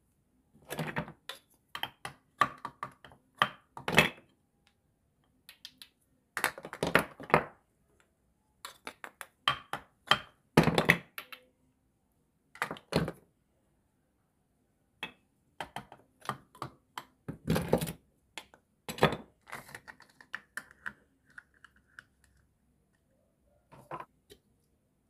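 Small toy kitchen pieces being handled: irregular clicks, taps and knocks in short clusters, with pauses between them.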